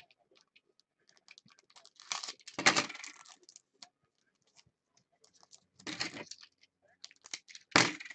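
A foil trading-card pack being handled: scattered small clicks and crinkles, with three louder rustles, about two and a half seconds in, around six seconds, and near the end.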